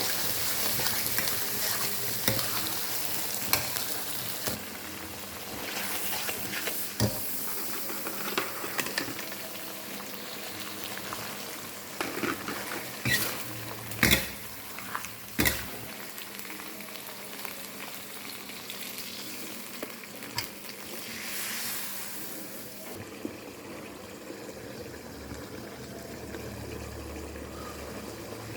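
Beef frying and sizzling in a pan while being stirred, with the spatula knocking against the pan several times around the middle. The sizzle drops off sharply about two-thirds of the way through.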